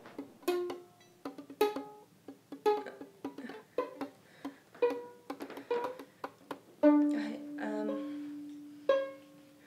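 Music on a plucked string instrument: single notes picked one after another, each dying away, with one louder note about seven seconds in that rings on for about two seconds.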